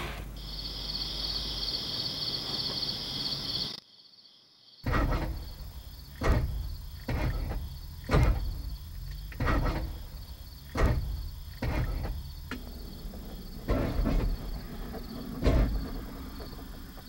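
Crickets chirping in a steady pulsing trill. After a brief drop-out about four seconds in, a string of irregular dull thumps comes in, roughly one a second, over the continuing chirping.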